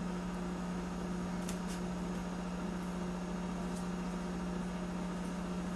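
A steady low hum over a faint hiss, with a couple of faint ticks.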